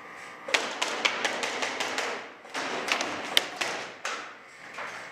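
Two bursts of airsoft gunfire, each about a second and a half long, full of sharp cracks and knocks as BBs strike hard walls and surfaces; a single knock follows near the end.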